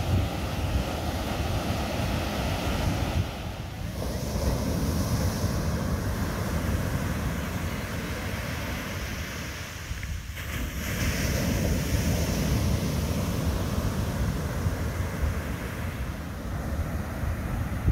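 Ocean surf washing with wind buffeting the microphone, a dense steady rumble, dipping briefly about four and ten seconds in.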